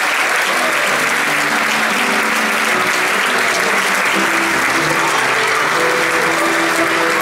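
Large theatre audience applauding steadily, with a pit band's music starting about half a second in and playing on underneath.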